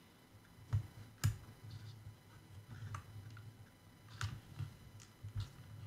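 Faint, irregular small clicks and taps of a pry tool and fingers working cable plugs loose from the connectors on a Hubsan Zino Pro drone's circuit board, the sharpest about a second in.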